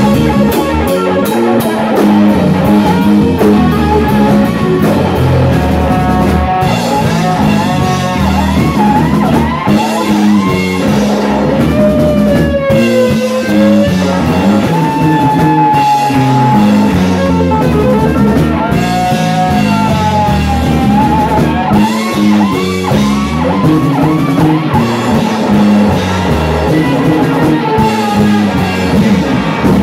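Live rock band playing loud: an electric guitar solos over drum kit, with bent, gliding notes and a long held note with vibrato about halfway through.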